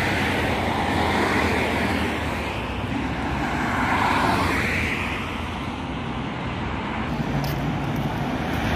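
Road traffic: cars driving by on a multi-lane road, a steady wash of tyre and engine noise that swells as a car passes close about four seconds in.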